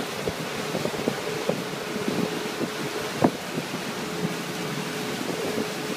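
Wind buffeting the microphone over the rush of a powerboat's wake and spray, with a steady engine hum underneath. A sharp thump stands out about three seconds in.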